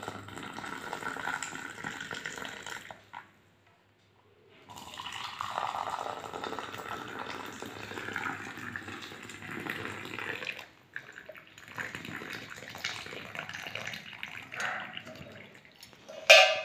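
Hot kadha, a spiced herbal drink, poured from a pan through a plastic strainer into glass cups, a steady splashing trickle of liquid. It breaks off for about a second and a half about three seconds in, and a short loud sound comes right at the end.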